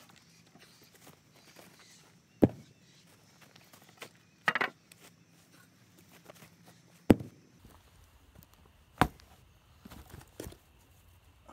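Heavy weathered timber blocks knocking as they are lifted, carried and set down: four sharp wooden knocks spaced about two seconds apart, the loudest about seven seconds in, then a couple of lighter knocks near the end.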